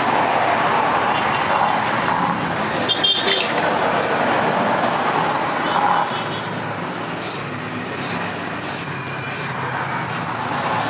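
Aerosol spray can hissing in many short bursts, about two a second, as it is sprayed over a steel knife blade, over a steady background rumble of noise.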